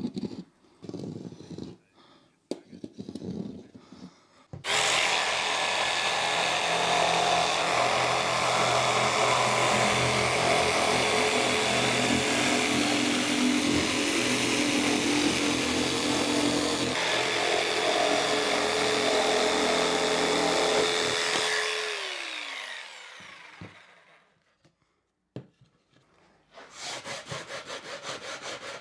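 Corded jigsaw cutting a curve in OSB board, running steadily for about seventeen seconds, then switched off and winding down with a falling pitch. Near the end, rhythmic strokes of a sanding sponge rubbing the cut edge.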